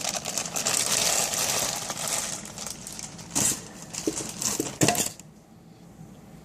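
Packaging crinkling and rustling as a heavy collectible figure is handled and unwrapped, followed by two sharp knocks about three and a half and five seconds in.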